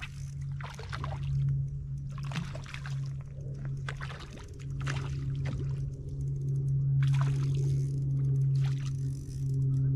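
Hooked trout splashing and thrashing at the water's surface in short irregular bursts as it is played in, over a steady low hum.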